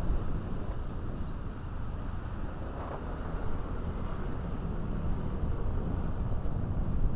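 Motorcycle riding along the road at a steady pace, its engine running under a heavy rush of wind buffeting the microphone.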